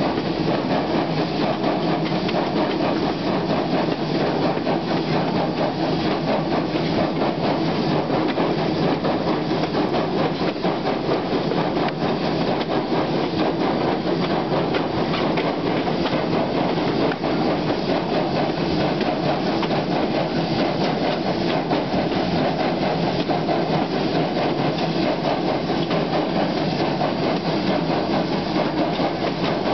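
Arcade & Attica No. 18, a 1920 Alco 2-6-0 steam locomotive, working hard up a grade: loud, steady exhaust chuffing from the stack, heard close to the engine.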